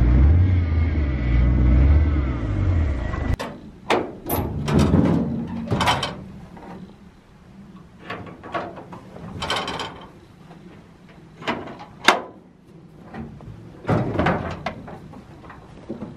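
A Ford pickup truck's engine running as the truck pulls forward, cut off abruptly about three seconds in. Then a string of separate metallic clanks and knocks as the truck's steel tailgate is unlatched and lifted off.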